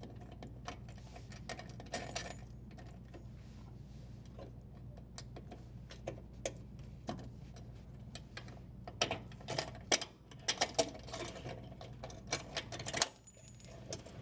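Irregular light clicks and rattles of hands working the strain relief and power cable free of a dishwasher's junction box, growing busier and louder about nine seconds in, over a steady low hum.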